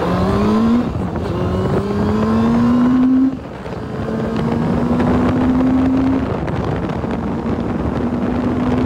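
Motorcycle engine pulling away and accelerating through the gears: the engine note rises in each gear and drops back at upshifts about one, three and six seconds in, then runs steadier near the end.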